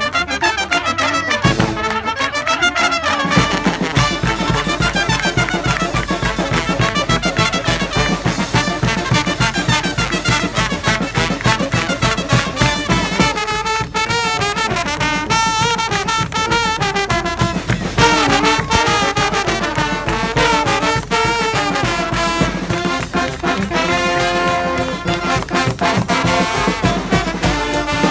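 Live brass street band playing: trumpets and trombones over a steady beat that grows denser a few seconds in.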